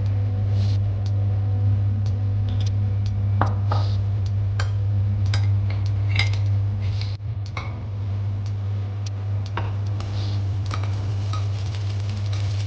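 Cooking utensils clinking and scraping against a pan as noodles are stir-fried, with scattered sharp clicks, over a steady low hum.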